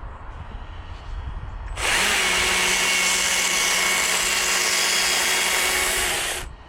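Handheld power tool working the wooden carving: it starts abruptly about two seconds in, runs at a steady pitch for about four and a half seconds, and stops shortly before the end.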